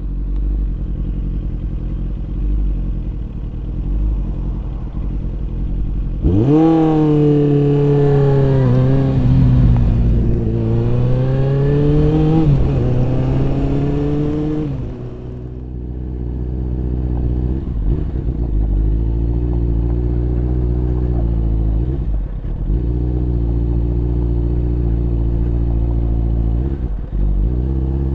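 Motorcycle engine heard from the rider's helmet, running under a steady low rumble. About six seconds in it revs up hard with rising pitch, drops briefly as it shifts up, and climbs again. The revs then fall away and it runs at lower, steadier revs with a few brief dips between gears.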